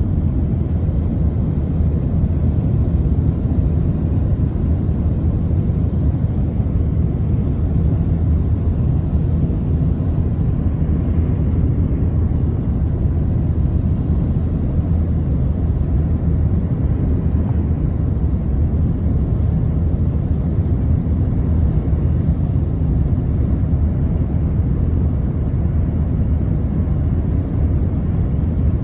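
Steady low rumble of road and engine noise heard from inside the cab of a moving pickup truck.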